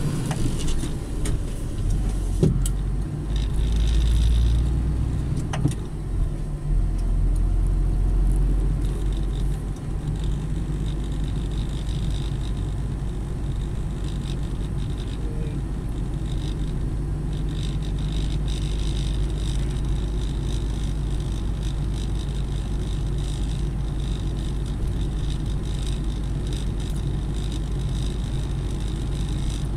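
Vehicle driving along, heard from inside its cab: a steady low rumble of engine and road noise, with a few sharp knocks in the first several seconds.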